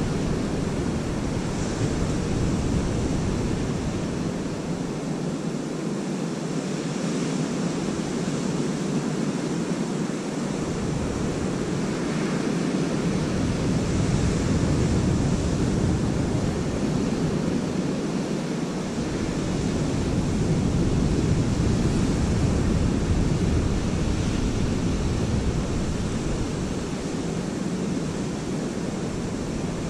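Waves breaking and washing up a sandy beach: a steady surf noise that rises and falls gently. Wind rumbles on the microphone and drops out now and then.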